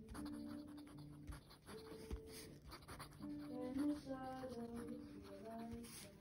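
Fountain pen nib scratching across paper as handwriting is written, over soft background music with held notes.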